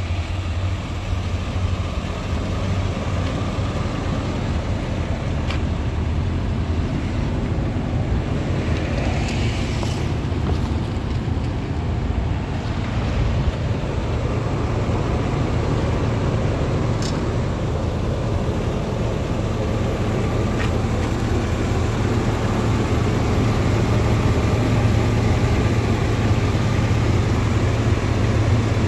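Pickup truck engine idling steadily, a continuous low hum, with a few faint clicks.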